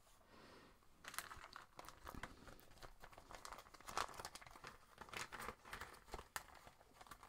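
Faint, scattered crinkling and light clicks of hands handling things, irregular and sparse, with a slightly louder click about four seconds in.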